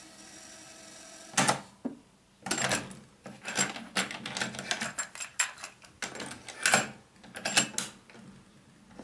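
Mechanical clicks and clunks from the piano-key buttons and cassette door of a Grundig RR240 radio cassette recorder being worked by hand. There is one sharp click about a second and a half in, then a run of irregular clicks until near the end.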